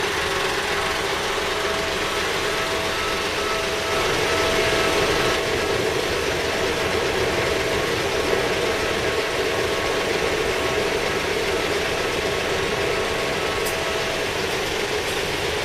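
Steady road traffic noise: vehicle engines and tyres running in a continuous wash, a little louder about four seconds in, with faint held tones that come and go.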